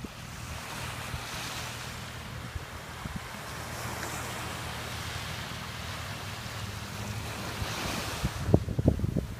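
Wind and surf noise with a steady low engine drone from a distant floatplane making its takeoff run on the water. Wind buffets the microphone in strong gusts near the end.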